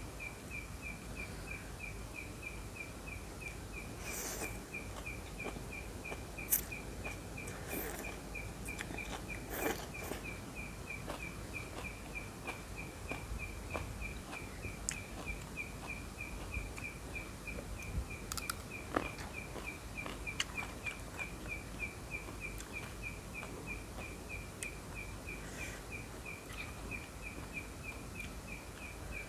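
An insect chirping steadily, about five short chirps a second, over outdoor background noise, with scattered clicks and crunches of eating.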